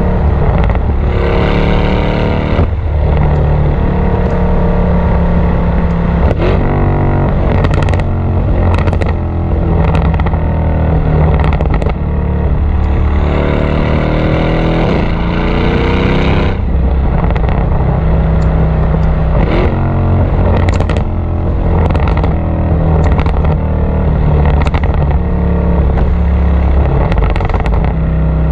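Exhaust of a tuned Mercedes-AMG E63 (W212) twin-turbo V8, heard from beneath the rear bumper while driving: two bursts of acceleration with rising revs, about a second in and around thirteen seconds in, each cut off sharply. Between them the engine runs on the overrun with many sharp pops and crackles from the exhaust.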